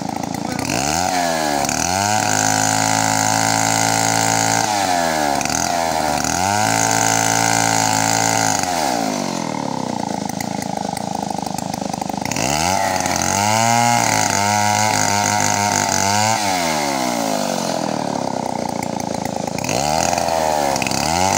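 Two-stroke chainsaw engine revved up to high speed and held for a few seconds, then let drop back to idle, three times over, with a fourth rev starting near the end.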